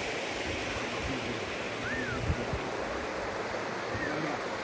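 Steady rush of flowing water, an even noise that does not change.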